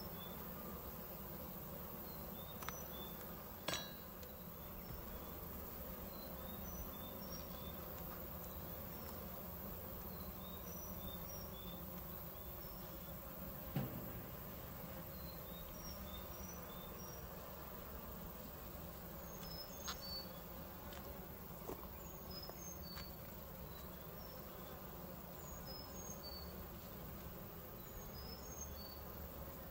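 Honeybees buzzing in a steady hum around an open Layens hive, with a few light knocks as the wooden frames are handled.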